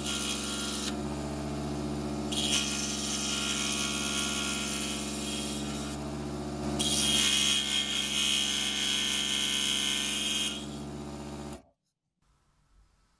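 Scroll saw running with its blade cutting through a small block of wood, the cutting noise swelling and easing as the piece is fed. The sound cuts off suddenly near the end.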